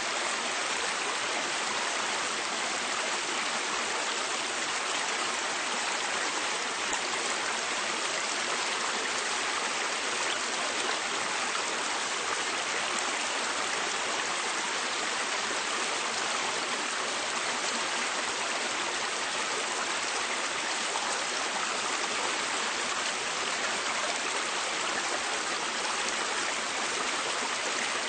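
River water flowing steadily, a constant rushing of running water with no change in level.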